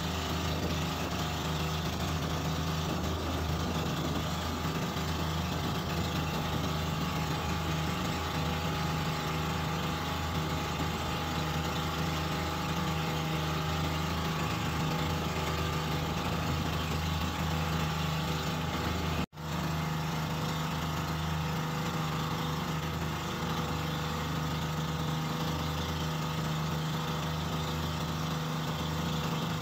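Outrigger boat's engine running steadily under way, a constant low drone mixed with the rush of water and wind. The sound cuts out completely for a split second about two-thirds of the way through, then carries on as before.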